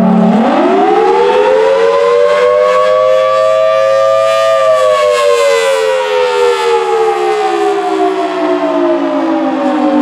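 Federal Signal Thunderbolt 1000T rotating outdoor warning siren sounding the Attack signal: its wail rises in pitch for about four seconds, then falls slowly.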